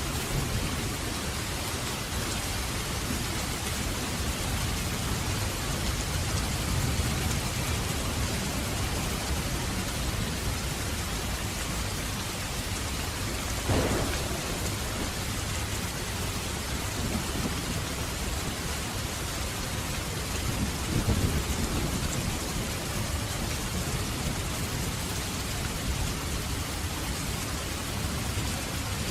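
Steady heavy rain with low rolling thunder; a sharp crack of thunder about halfway through, and a louder rumble a few seconds later.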